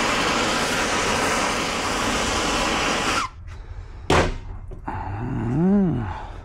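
Gas torch burning with a steady loud hiss, heating the bearing race tool and race so they expand for fitting onto the crankshaft. It shuts off abruptly about three seconds in, followed by a single sharp knock and a short voiced sound that rises and falls in pitch.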